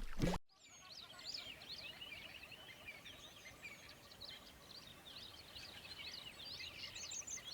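Faint, distant flock of geese calling high overhead, many short overlapping honks in a busy chatter.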